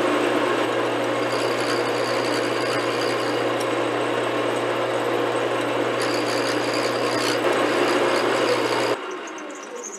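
Metal lathe running, its chuck spinning a brass hose barb while the tool bit takes light turning cuts: a steady whir and hum with a scraping cutting noise. The sound drops off sharply near the end.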